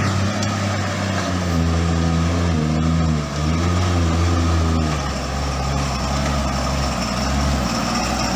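Four-wheel-drive vehicle engine running under load, the revs rising and falling for a few seconds and then settling to a steadier, lower note about five seconds in.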